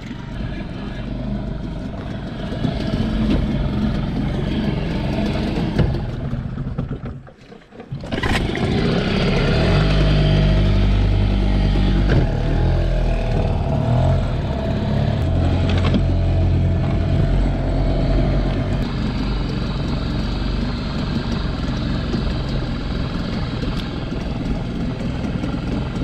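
Small outboard motor on an inflatable dinghy running steadily under way. It dips out briefly about seven seconds in, then comes back louder and holds a steady drone.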